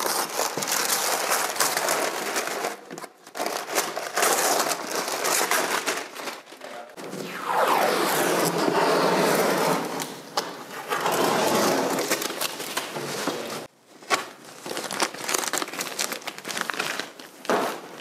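Masking paper crinkling and green painter's tape being peeled and torn off freshly spray-painted metal window frames, in irregular bursts of rustling and ripping with short pauses between.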